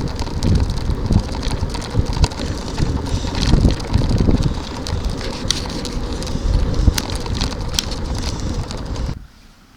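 Wind buffeting the microphone of a camera on a moving bicycle, a gusty rumble with scattered light rattles and ticks. It cuts off abruptly about nine seconds in.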